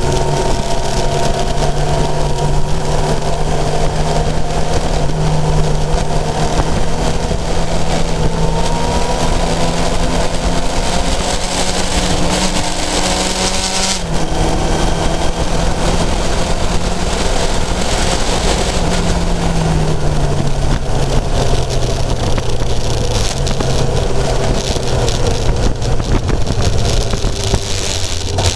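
Kawasaki motorcycle's inline-four engine running under way, with wind rushing over the onboard microphone. The engine pitch climbs slowly, drops suddenly about halfway through, then steps down several times as the bike slows.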